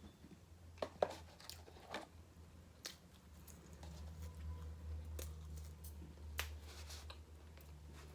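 Quiet eating sounds: chewing with scattered sharp mouth clicks and light crackles of handled food, over a steady low hum.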